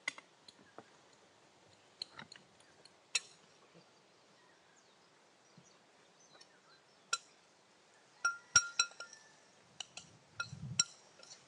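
A metal fork clinking against a glass mixing bowl as guacamole is mashed and stirred: scattered light clinks, with runs of quick clinks about eight and ten seconds in.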